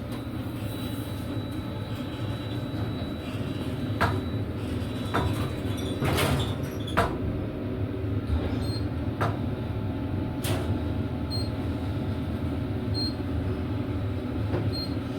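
Elevator car travelling between floors: the steady low hum and rumble of the moving cab, with a few clicks and knocks, the loudest about six to seven seconds in.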